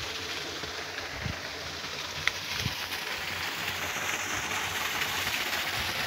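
Steady rushing of water from a small waterfall spilling into a creek pool, growing a little louder in the second half, with a few soft footsteps.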